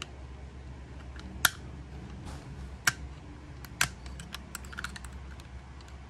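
Small flat screwdriver clicking and tapping against a Glock 17 Gen 4's frame and magazine release while prying the release out: three sharp clicks about a second apart, then a quick run of lighter ticks. A low steady hum runs underneath.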